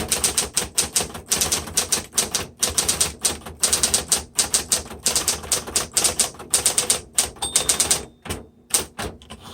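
Smith Corona Electra 110 electric typewriter being typed on quickly: a rapid stream of sharp keystrikes over the steady hum of its running motor, thinning to a few separate strikes near the end.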